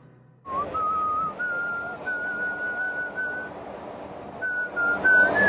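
Someone whistling a slow tune, a string of held notes with a short pause in the middle, over a steady background noise. It starts about half a second in.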